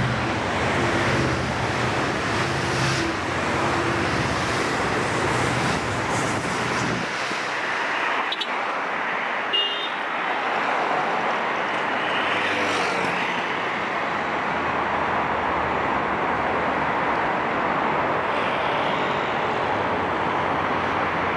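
Steady noise of dense multi-lane highway traffic. Under it, the low hum of a departing train's engine stops about seven seconds in. A brief sharp knock comes just before ten seconds.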